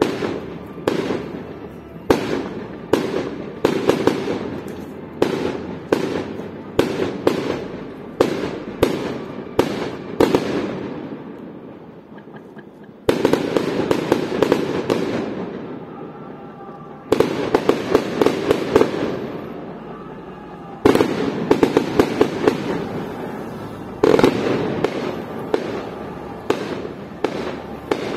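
Aerial fireworks going off in rapid volleys of bangs and crackle, several shots a second. The firing thins out about twelve seconds in, then fresh barrages start suddenly three or four more times.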